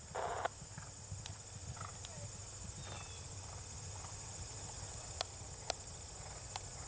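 Steady high-pitched chirring of insects, such as crickets, over a low rumble, with a short noisy burst at the start and a few faint sharp clicks later on.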